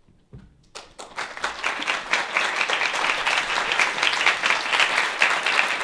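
Audience applauding after a moment of quiet: a few first claps about a second in, quickly filling out into full, steady applause.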